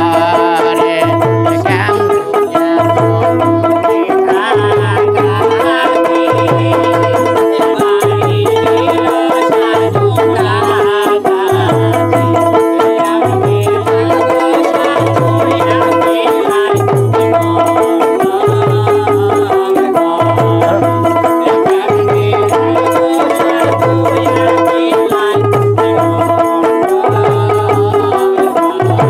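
Instrumental passage of Bhawaiya folk music: a plucked long-necked string lute plays a repeating melody over a steady low drum beat, with no singing.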